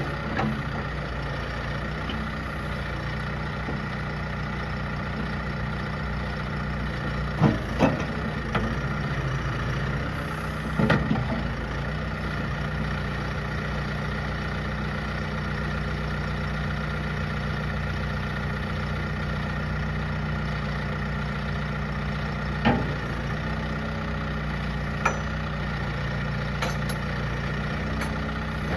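Diesel engine of a John Deere 410L loader backhoe running steadily, with a few short, sharp knocks now and then.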